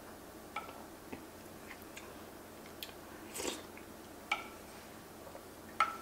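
Spoon tapping and clinking against a ceramic soup bowl about six times, some taps ringing briefly, the loudest near the end, with soft chewing and a short noisy sound a little past the middle.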